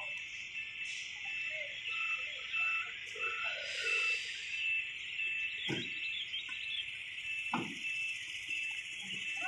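Insects droning steadily in the roadside trees, one of them pulsing at an even beat, with faint distant calls and two short low sounds in the second half.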